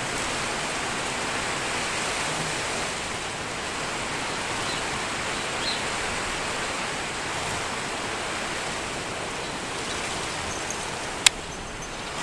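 A steady, even hiss, with one sharp click near the end.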